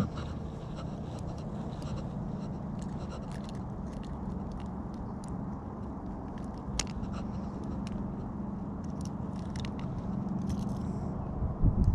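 Scattered small clicks and scrapes of pliers and lure hooks as a jerkbait is worked out of a barracuda's mouth, over a steady low hum.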